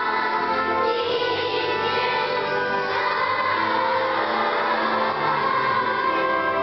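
Children's choir of third graders singing a song together, with held notes and no breaks.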